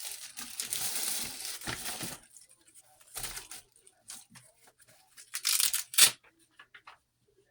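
Rustling and crinkling of small objects being handled: a steady rustle for about two seconds, then scattered light clicks and a short, louder rustle about six seconds in.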